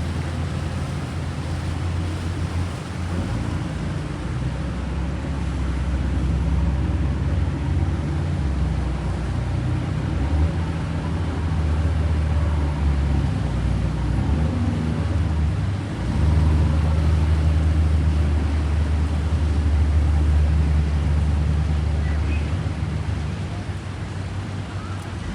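Steady low engine rumble of a large boat, with a hiss of background noise over it; it swells louder about two-thirds of the way through.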